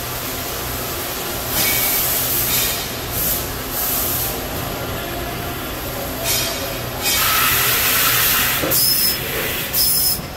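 Fanuc RoboDrill Alpha T10-C machining center cycling through a tool change, with its 10-station tool carousel indexing: repeated bursts of air hiss over a steady machine hum, the longest and loudest hiss in the second half.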